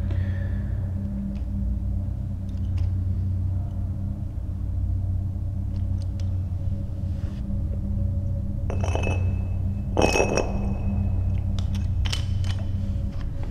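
A steady low rumbling drone with a faint held tone, and scattered light clinks. Two louder clattering clinks come about nine and ten seconds in.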